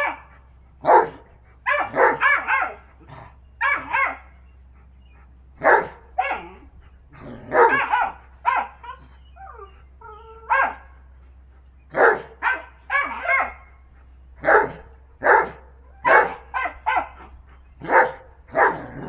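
Dogs barking in rough play, a Vizsla puppy with a big old Briard: a long run of short, sharp barks, some in quick pairs, thinning out briefly near the middle.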